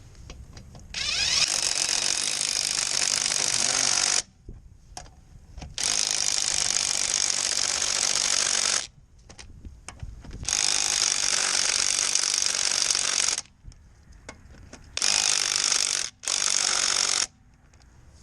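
Corded electric impact wrench hammering a car's lug nuts tight, in five bursts: three of about three seconds each, then two short ones of about a second near the end.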